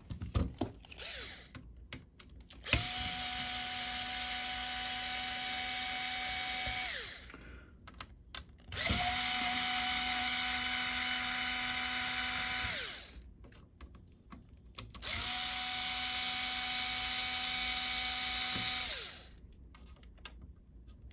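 Small cordless electric driver backing out the screws that hold the fan in a mini PC: three runs of about four seconds each with a steady whine, each spinning up and winding down, with small clicks between runs.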